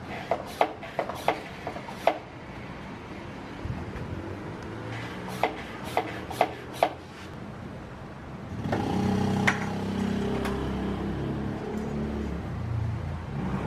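Footsteps on concrete in two short runs of sharp clicks, then a low, steady engine hum comes in about nine seconds in and carries on.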